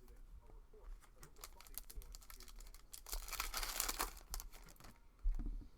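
Trading cards being handled and a foil card-pack wrapper crinkling: a run of light clicks and rustles with a denser burst of crinkling about three seconds in, then a low thump near the end.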